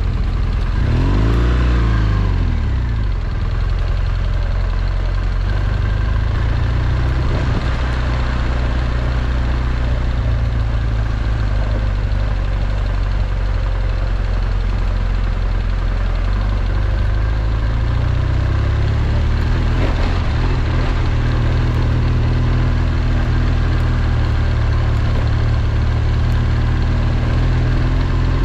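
BMW R1200GS boxer-twin engine running steadily as the motorcycle rides a dirt road, under a constant rush of riding noise, with a brief rise and fall in revs about a second in.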